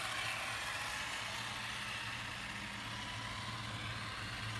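Firework burning with a steady hiss, over a low steady hum.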